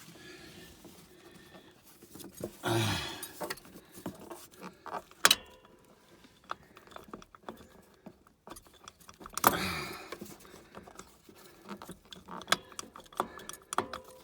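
Scattered metallic clinks, taps and knocks as the loosened starter motor of a 2010 Polaris Ranger 500 and hand tools are worked in the engine bay, with a couple of short grunts.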